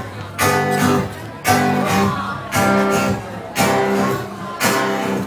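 Acoustic guitar strumming chords, about one strum a second, each chord ringing out and fading before the next.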